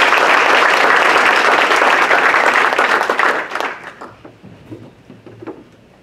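Audience applauding, a dense sustained clapping that fades out about three and a half seconds in, leaving a few faint knocks.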